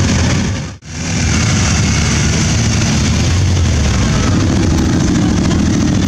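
Many motorcycle engines running as a procession of bikes rolls slowly past at close range, a dense low rumble. The sound drops out briefly just under a second in.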